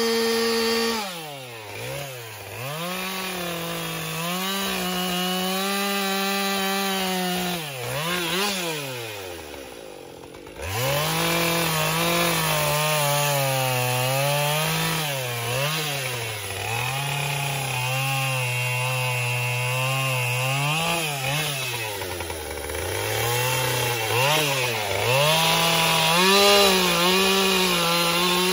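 Husqvarna two-stroke chainsaw carving wood, its engine revved up and down over and over as the chain makes short cuts. About nine seconds in the revs sink low and the sound goes quieter, then pick up again a second or so later.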